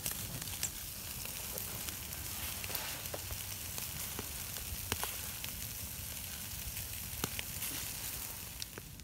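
Food sizzling on a grill over a campfire: a steady frying hiss with sharp pops every second or so.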